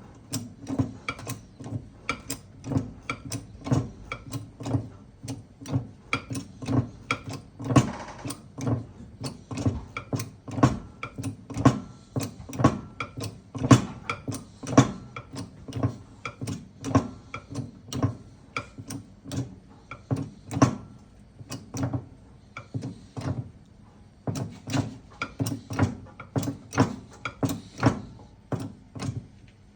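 Workshop press being worked in short repeated strokes, a sharp click or knock about twice a second, as a greased pump shaft is pressed through the hub of a marine diesel circulation pump.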